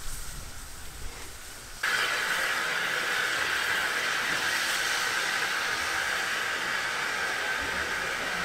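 A steam locomotive venting steam: a steady, loud hiss that starts abruptly about two seconds in, after a faint low rumble.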